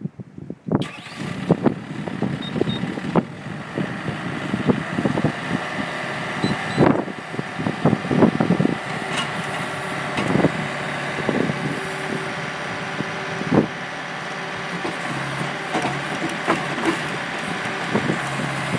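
Bobcat T-190 track skid steer loader's Kubota diesel engine starting up about a second in and then running steadily, with frequent short knocks and clatters over the engine sound.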